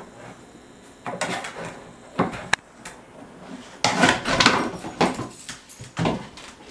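A long cardboard tube knocking, rolling and scraping on a tile floor as a large dog noses and pushes it, in several bursts of hollow knocks, loudest about four seconds in.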